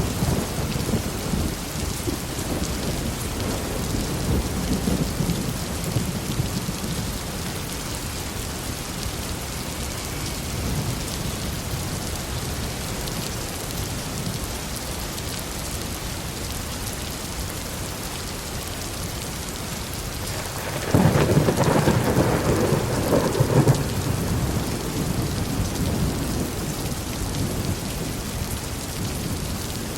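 Steady heavy rain with rolling thunder; about two-thirds of the way through a loud, sudden thunderclap breaks out, crackles for a few seconds, then rumbles away under the rain.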